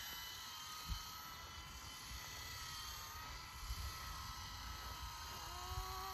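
Small electric RC helicopter hovering a short way off: its motor and rotors give a steady, high, faint whine. Wind rumbles on the microphone underneath.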